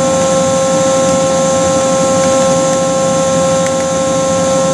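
Steady hum of running machine-shop equipment, a constant drone made of several held tones, with a couple of faint ticks partway through.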